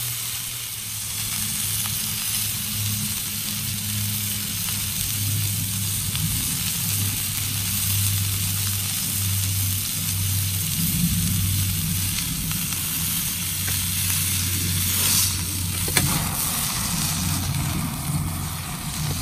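Steak sizzling as it fries in a Trangia 27 pan, a steady hiss, with a low steady hum underneath. There are a couple of sharp clicks near the end.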